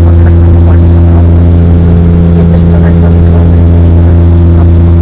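Airliner engines droning steadily, heard from inside the passenger cabin in flight after takeoff. The drone is loud and unchanging, with a deep hum and several steady tones above it.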